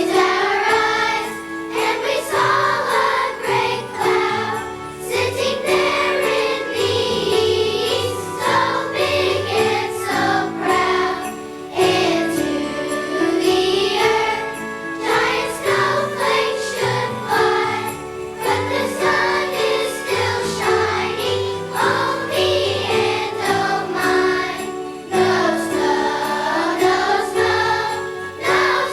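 Children's choir singing a holiday song with rewritten lyrics over a musical accompaniment, at a steady, full level.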